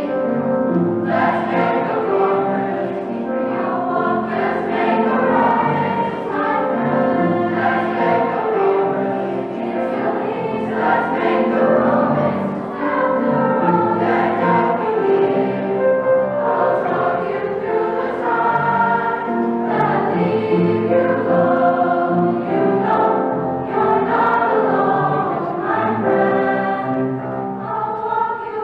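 Large mixed choir of boys and girls singing a song in harmony, several voice parts holding and moving between sustained notes at a steady, full volume.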